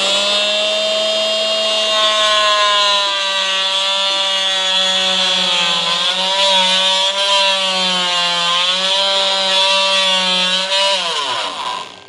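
Oscillating multi-tool running with a dull blade plunge-cutting into hardwood: a steady pitched buzz that dips and wavers as the blade bites, then winds down and stops near the end. The dull blade wanders and cuts poorly, heating up rather than cutting a straight line.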